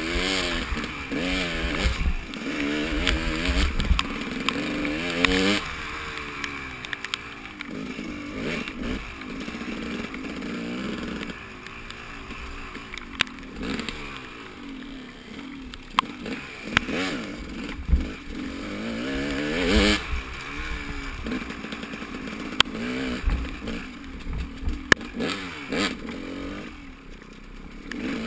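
Motorcycle engine being ridden, its pitch rising and falling over and over as the throttle opens and closes, with scattered knocks and clatter over a steady hiss.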